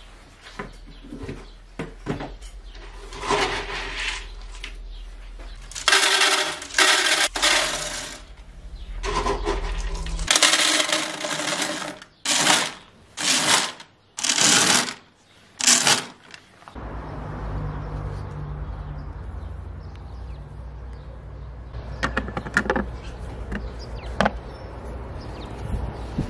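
Dry cat kibble scooped out of a plastic tub and poured down a plastic pipe into a metal feeder tray, rattling loudly in several bursts of a second or two. About two-thirds of the way in this gives way to a steady low rumble with a few scattered clicks.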